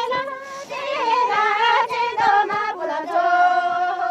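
A group of women singing together without instruments, in long held notes that slide from one pitch to the next.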